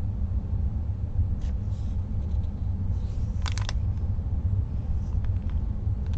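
Paper cross stitch chart being handled and its pages turned over printed fabric, with a short burst of sharp crackles about three and a half seconds in, over a steady low rumble.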